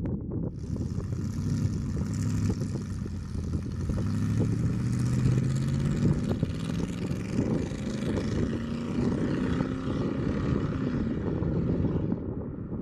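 1984 Chevrolet C10 pickup's engine and exhaust accelerating away, the engine note climbing in pitch as the truck pulls down the road.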